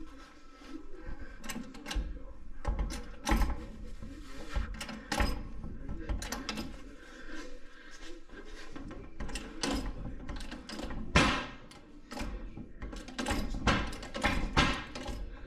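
Irregular metal clanks and knocks from hand work on a car's front suspension: a compressed coil spring in a spring compressor, the control arm and the jack. One knock about eleven seconds in is louder than the rest.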